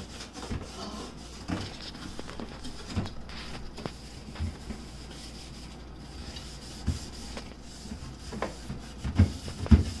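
Scotch-Brite scouring pad scrubbing the corners inside a refrigerator: a steady rubbing with scattered light knocks, and a few louder knocks near the end.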